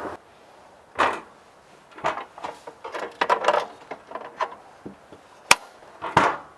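A run of irregular knocks, clicks and rustles, as of objects being handled and set down, over a quiet background, with one sharp click about five and a half seconds in.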